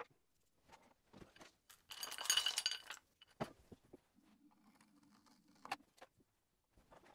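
Clinking, jingling clatter of small hard objects being handled for about a second, a couple of seconds in, with a few light clicks around it; later a low steady hum from the electric pottery wheel runs for a second or two and stops.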